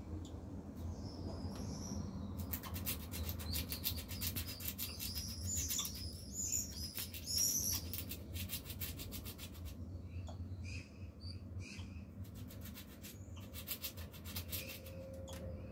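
Eurasian red squirrel gnawing an apricot pit with its incisors: fast rasping scrapes in two long runs, with a pause of a couple of seconds between them. Short high squeaks come before, between and among the scrapes: the squirrel hiccuping as it gnaws.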